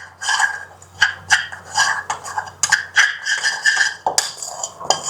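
A spoon stirring and scraping in a pan, in repeated strokes about twice a second, mixing jaggery into ghee with turmeric and dry ginger.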